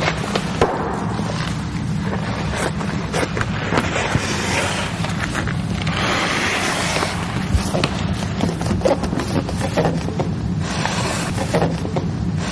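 Vinyl camouflage film and its paper backing crackling and rustling as they are handled and smoothed onto a truck hood, with scattered sharp clicks and a denser rustle about halfway through, over a steady low hum.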